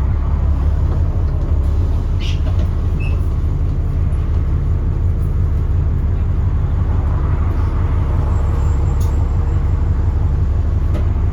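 Alexander Dennis Enviro400 double-decker bus's diesel engine running steadily under way, with a couple of light knocks about two seconds in and again near nine seconds.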